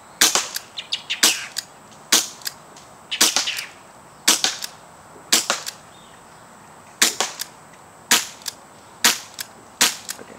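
Crosman .357 CO2 pellet/BB revolver firing a string of about ten shots, roughly one a second with a short gap in the middle, each a sharp pop trailed by a few fainter clicks.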